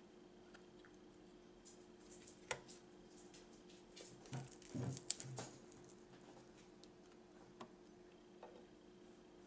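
Close-up eating sounds: a crispy taquito bitten and chewed, with scattered crackles and wet mouth sounds that bunch together around the middle, one sharp crackle standing out.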